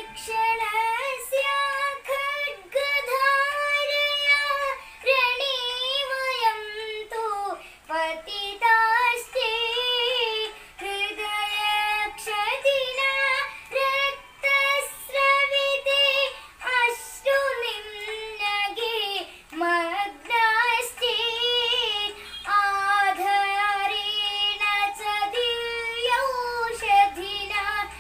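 A young girl singing a Sanskrit song solo in a high voice, with long held notes that bend and waver, broken by short breaths between phrases.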